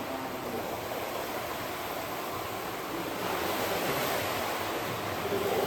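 Steady rushing water noise in a swimming pool, with no distinct splashes standing out.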